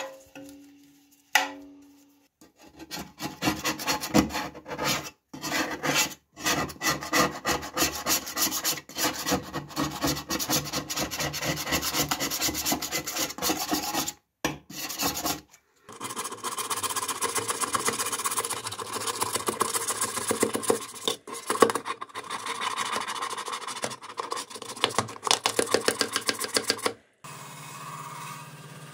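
A flat metal scraper rasps old paint off a sheet-metal telephone housing in quick, repeated strokes, with a few brief breaks. Near the end an electric bench polishing machine runs with a steady hum.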